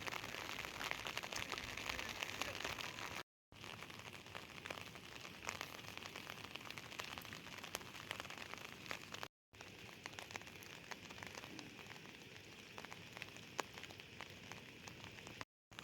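Heavy rain falling: a steady hiss thick with small individual drop impacts. The sound cuts out completely for a moment three times.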